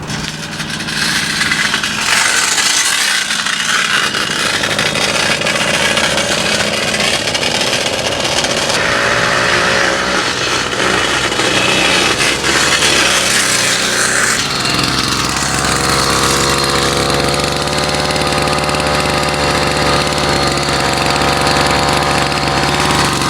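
A 50cc two-stroke bicycle engine kit catches after a push start and runs loud, its speed rising and falling. About fifteen seconds in it settles into a steady, even note.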